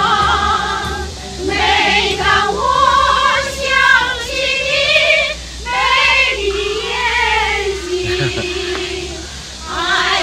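A group of women singing together without pause for talk, long wavering sung notes in phrases, with short breaths between phrases about a second and a half, five and a half, and nine and a half seconds in.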